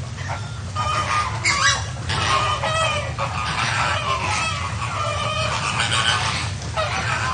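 A flock of flamingos honking and calling, many nasal, goose-like calls overlapping throughout, over a steady low rumble.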